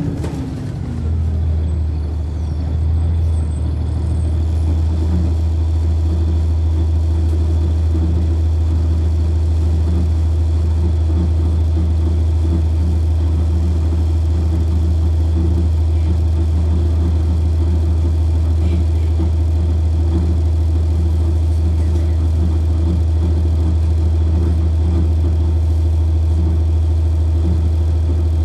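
Cummins ISC inline-six diesel engine of a 1999 Nova Bus RTS, heard from on board: its pitch falls in the first half-second, then it runs steadily with a deep, even hum.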